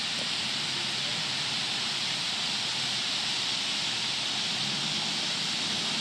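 A huge flock of birds calling all at once, the many calls blending into a steady, even hiss.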